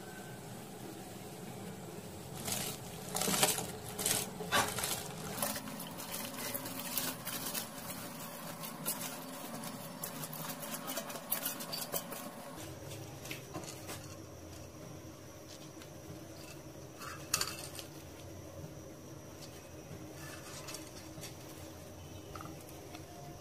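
Steel bowl clinking and scraping against a cooking pot as rice is tipped into boiling water, over a steady low hum. The clinks come in a cluster about three to five seconds in, thin out over the next several seconds, and there is one more sharp clink past the middle.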